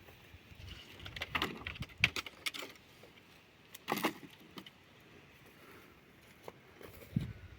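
Ox cart rolling: irregular wooden knocks and a jingling metal clatter, busiest in the first half with a loud knock about four seconds in, then quieter.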